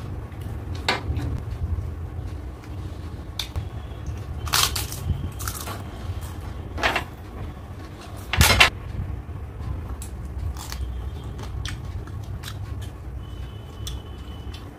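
Scattered sharp knocks and clicks, a dozen or so, the loudest about eight and a half seconds in, over a steady low rumble.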